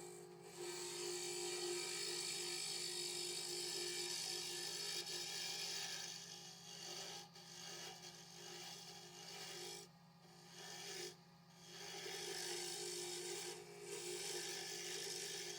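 Wood lathe running with a steady motor hum while a willow pen blank is worked on it, giving a continuous scraping hiss. The work stops briefly a few times, about seven, ten, eleven and fourteen seconds in.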